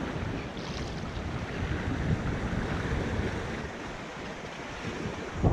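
Ocean surf washing against shoreline rocks, a steady rushing noise, with wind buffeting the microphone in low gusts.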